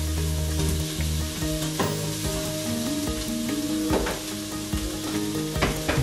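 Food frying in oil in a pan on a gas stovetop, sizzling steadily, with a few sharp knocks of a utensil as it is stirred. Sustained low musical notes play underneath.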